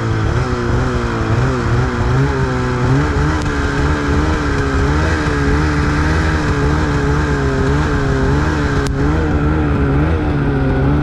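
Snowmobile engine running at a steady riding pace along a trail, its pitch wavering slightly up and down. A single sharp click about nine seconds in.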